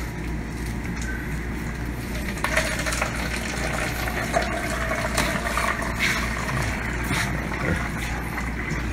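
Water running from a new Whirlpool side-by-side refrigerator's door dispenser into a foam cup. This is the first water drawn through the new line, run off to flush it.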